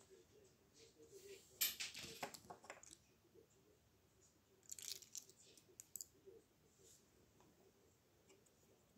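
Faint clicking and light rattling of plastic LEGO pieces and minifigures being handled, in short clusters about one and a half seconds in and again around five seconds in.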